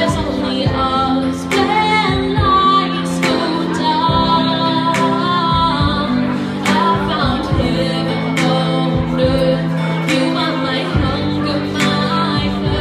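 A woman singing a slow song through a microphone over backing music, holding long, wavering notes above sustained chords, with a soft beat about every second and a half.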